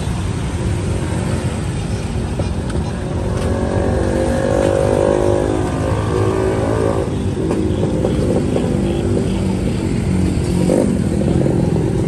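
Small motorbike engines running close by, a steady low rumble. One engine's note comes up about three and a half seconds in, rises a little, and stops sharply about seven seconds in.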